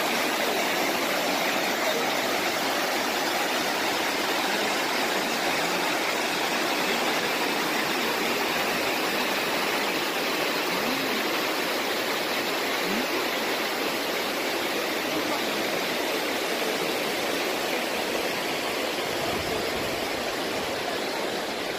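Steady rushing of a mountain waterfall cascade pouring over granite slabs: an even, unbroken roar of white water.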